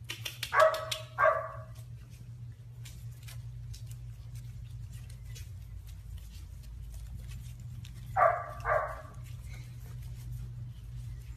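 Two pairs of short squeaks, one about a second in and one near the end, from plush squeaky duck toys on a puppy's paws. Light ticking runs between them.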